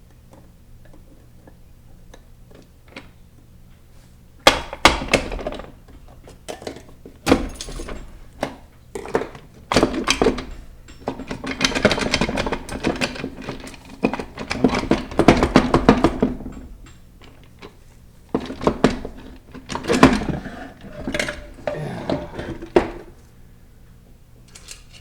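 Metal parts of a 4L60E automatic transmission clanking, rattling and scraping as they are handled in the case. It starts about four seconds in as a run of separate knocks, turns into dense clatter in the middle, and ends in a few scattered strikes near the end.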